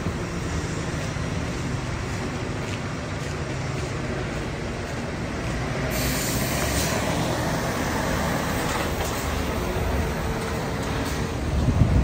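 Diesel engines of heavy street-works vehicles, a wheeled excavator and a dump truck, running steadily as a low drone. About halfway through a broad hiss joins in, and the low engine sound grows louder near the end as the truck comes close.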